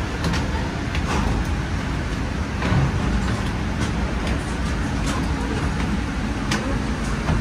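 Footsteps climbing stairs, with a few sharp clicks, over a steady low rumble.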